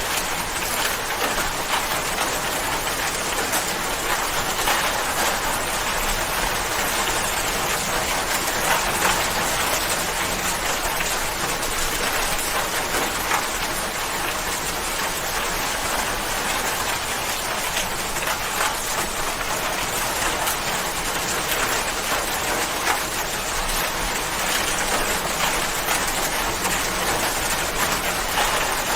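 Steady rain falling, an even hiss of many drops spattering on a surface, with no change in intensity.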